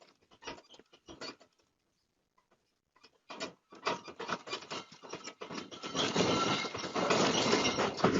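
Loose objects rattling and clattering as an earthquake shakes them: scattered knocks at first, then, after a short lull, a dense clatter that builds up and is loudest from about six seconds in.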